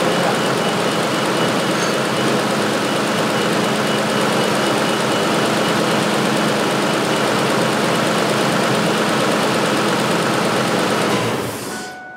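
2006 Ford F350's engine running steadily in the engine bay, then switched off about eleven seconds in, its noise dying away within a second.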